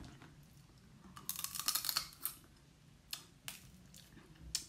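Cooked crab shell crackling and snapping as it is broken apart by hand: a dense run of crisp clicks about a second in, then a few single cracks.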